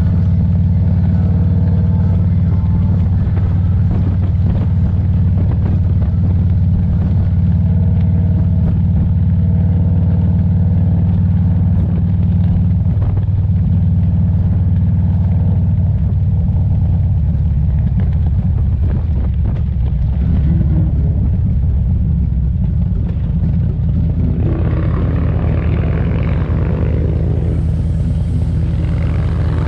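Motorcycle engine running under way, a steady low rumble with wind and road noise. In the last few seconds a louder, rougher noise in the middle range joins it.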